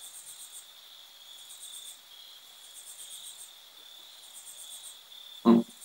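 Crickets chirping faintly in short pulsed trills that recur about every second and a half, over a steady high-pitched tone. A brief voice sound comes near the end.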